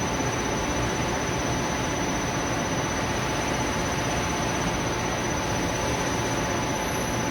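Taiyo Koki CVG-13 grinding machine running while grinding cast iron: an even rushing noise with a thin, steady high whine.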